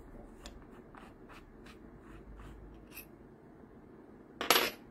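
Keyless chuck of a 21V cordless drill being twisted by hand, giving a row of faint clicks about three a second, followed near the end by a single loud, sharp knock with a brief metallic ring.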